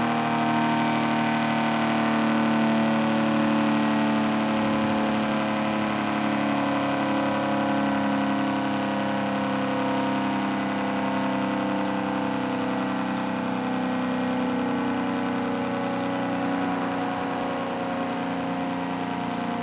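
ACA Screamer S-10 outdoor warning siren, reverse-wired, sounding a loud steady tone that slowly gets a little quieter.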